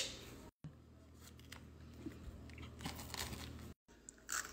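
Faint chewing and crunching of a snack, a graham cracker topped with gummy candy, heard as scattered small crackles over a low steady hum. The sound cuts out completely twice, about half a second in and near the end.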